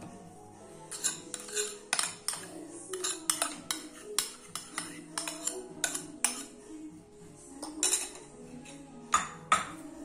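A metal spoon tapping and scraping against a china bowl as meat broth is scraped out of it over the vegetables: a quick, irregular run of sharp clinks.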